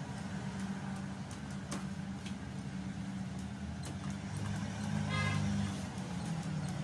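Motorstar 150 motorcycle engine being turned over by its electric starter during a spark test, running steadily without catching, with a few faint ticks and a short higher-pitched whine about five seconds in. The owner suspects weak compression from a leaking intake valve.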